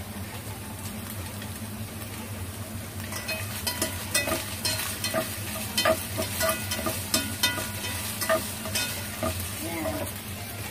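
Minced pork and mushrooms frying in a pan over a steady low hum, with a utensil scraping and knocking against the pan as the food is stirred, several strokes a second, starting about three seconds in.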